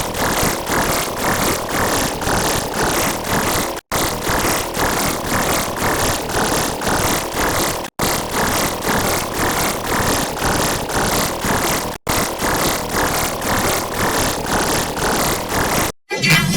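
Heavily processed, distorted electronic audio loop played four times in a row, each pass about four seconds long with a brief cut between them; a dense, noisy sound with a regular pulse of about three beats a second.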